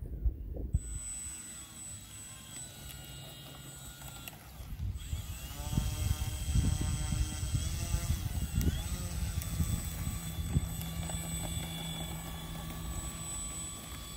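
The electric motor and propeller of an E-flite PT-17 RC biplane spool up with a rising whine about five seconds in, then run at a steadier pitch as the plane taxis over grass.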